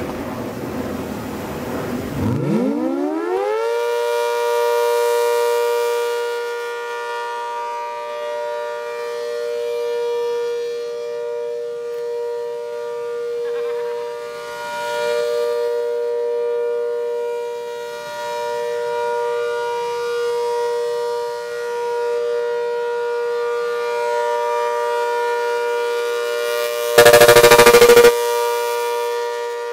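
ACA Hurricane rotating outdoor warning siren winding up from a low growl to a steady two-tone wail during its monthly test. The sound swells and fades as the rotating horn sweeps round. Near the end there is about a second of much louder, distorted blast as the horn faces the microphone.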